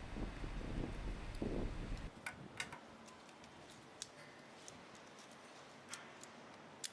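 Faint handling rustle, then a few sharp, sparse metallic clicks about a second apart from a stainless-steel multitool being handled, its implements moving and snapping into place.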